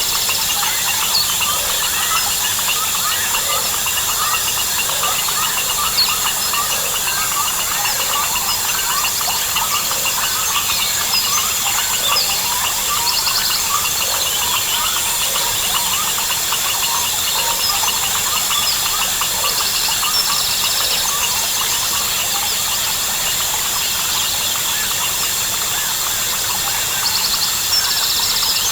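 Dense Amazon rainforest chorus of crickets, frogs and birds: a constant high insect drone under a thick layer of short, overlapping chirps and calls, with brief buzzing trills coming and going every few seconds.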